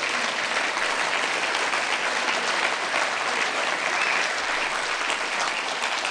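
Audience applauding a speaker, a steady mass of clapping.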